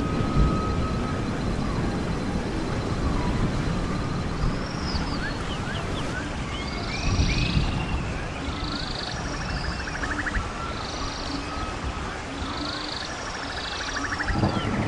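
A steady low rumble with repeated short, arched high chirps from an animal, about one a second, and a couple of fast trills around the middle and near the end.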